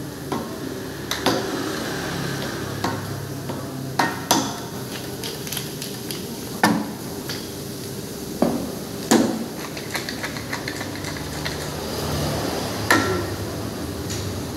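Teppanyaki chef's utensils striking the steel griddle: about eight sharp, irregular clanks and taps, some with a short ring after them, over a steady background hiss.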